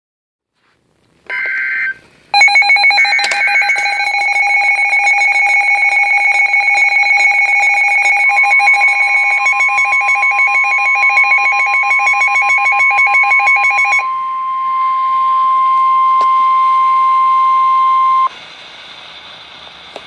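NOAA Weather Radio emergency alert: a short burst of the chirping digital alert-header data, then a weather radio's own alarm beeping rapidly for about twelve seconds. About eight seconds in, the steady single tone of the National Weather Service warning alarm comes in over it and runs until it cuts off about eighteen seconds in, leaving a low hiss before the warning message.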